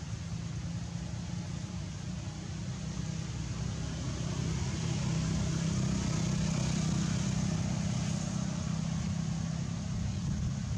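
Steady low outdoor rumble with a light hiss, growing louder about halfway through and easing off again.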